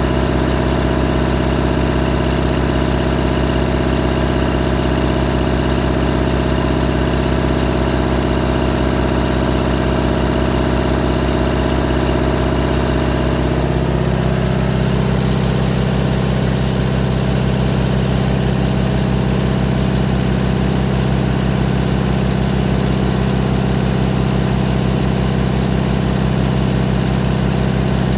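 1965 Owens generator's engine running steadily on a mix of compressed hydrogen and oxyhydrogen (HHO). Its tone shifts about halfway through, settling into a deeper, fuller note.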